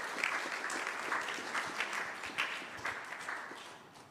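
Small audience applauding, a patter of many hand claps that dies away near the end.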